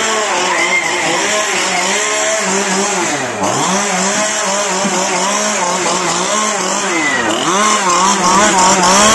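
Two-stroke chainsaw engine running at high revs. Its pitch drops twice, about three seconds in and again about seven seconds in, and climbs straight back each time as the throttle is eased and opened again.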